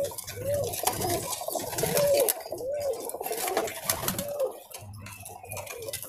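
Racing pigeons cooing, a steady run of short coos that rise and fall in pitch.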